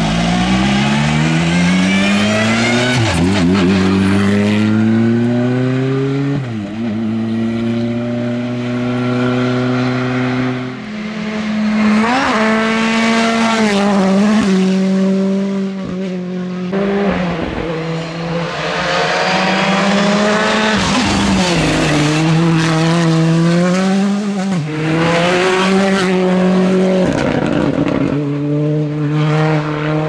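Hyundai i20 N Rally2 rally car driven flat out. Its turbocharged four-cylinder engine note climbs and drops again and again as it shifts gears and lifts for corners.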